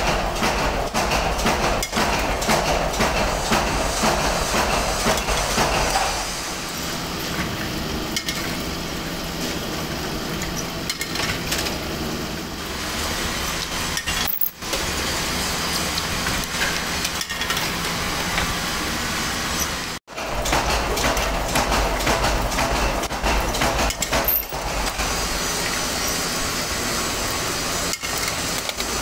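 Drill press boring through steel hex nut blanks held in a jig under a stream of coolant: the machine runs steadily while the bit grinds through the metal, with metallic clinking throughout. The sound changes abruptly a few times.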